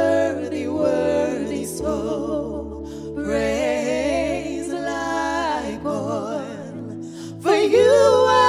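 Two women singing a gospel duet into microphones, their voices wavering with vibrato over held accompaniment chords. The singing gets louder near the end.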